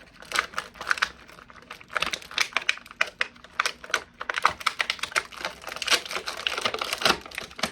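Small hard plastic parts of an action figure and its accessories clicking and rattling as they are handled and fitted, in quick irregular clicks with a brief lull about a second in.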